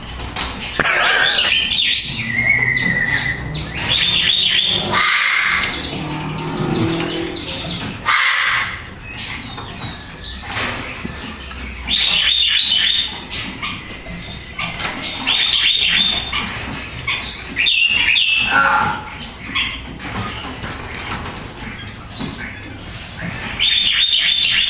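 A bird being hand-fed gives repeated short bursts of high, harsh calls every few seconds, with some wing flapping.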